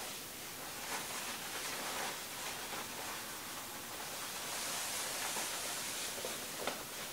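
Steady airy hiss of a Breathecool II supplied-air respirator's turbine blowing fresh air through the hose into a Tyvek hood, with the crinkling rustle of the hood as it is pulled off over the head, strongest about five seconds in.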